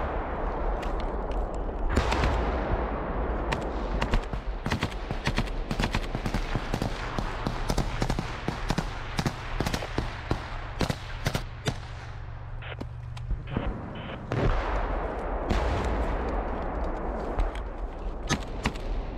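Small-arms gunfire in a firefight: many sharp single shots and quick bursts at irregular spacing, over a continuous rushing noise. The firing thins out briefly a little past the middle, then picks up again.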